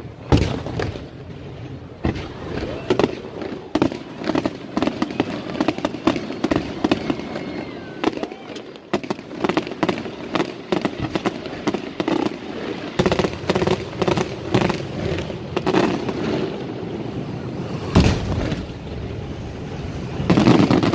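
Aerial fireworks display: a fast, irregular run of shell bursts and crackling. It grows denser about two-thirds of the way in and builds to a heavy volley of booms near the end.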